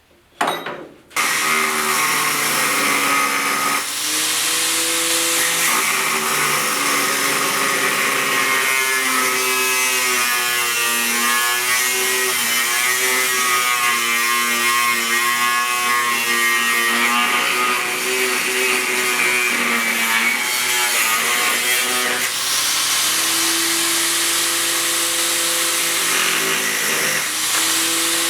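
A power grinder grinding down a steel bolt to make a bandsaw blade guide, starting up about a second in and running continuously, with a loud hiss of metal on the wheel and a motor hum whose pitch wavers as the work is pressed on.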